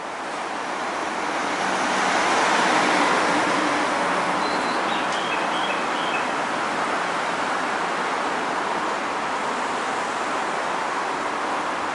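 Steady rushing outdoor background noise with no distinct source, growing over the first two seconds and then holding level, with a few faint short chirps about four to five seconds in.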